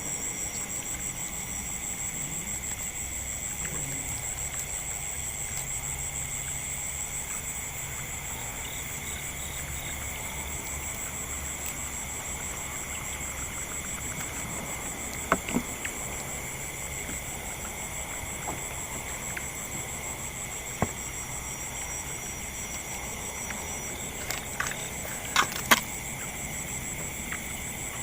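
Steady night-time chorus of crickets and other insects, a continuous high trill. There are several sharp short clicks or knocks in the second half, a cluster of them near the end.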